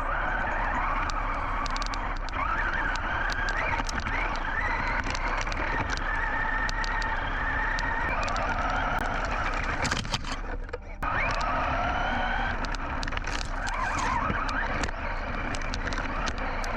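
Team Associated Rival MT10 RC monster truck driving over a trail. Its brushless motor and drivetrain whine rises and falls in pitch with the throttle, over a rough noise of tyres on dirt with many small ticks and knocks. The whine cuts out briefly about two-thirds of the way through, then picks up again.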